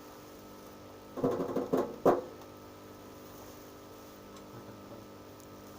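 A quick flurry of clattering knocks about a second in, ending in one sharper, louder knock, over a steady low hum of room background.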